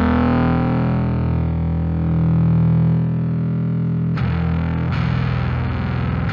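Bass guitar played through a Fender Blender fuzz pedal: a held, distorted note rings on with its treble slowly fading, then fresh notes are picked about four seconds in.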